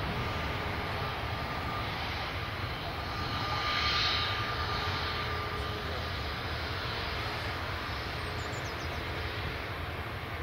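Airliner's engines running, with a steady whine, the sound swelling to its loudest about four seconds in and then easing.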